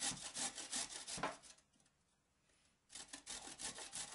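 Carrot grated on a coarse metal grater in quick, even rasping strokes, about six a second. The strokes stop about a second and a half in and start again after a pause of about a second and a half.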